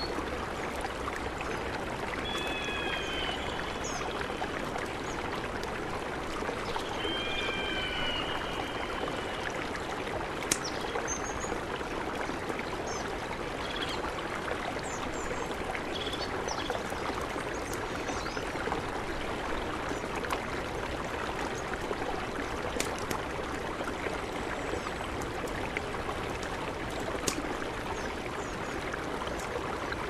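Steady rushing of a mountain river, with a few sharp pops from a crackling campfire scattered through it. A bird calls twice in the first eight seconds, with a few faint high chirps later.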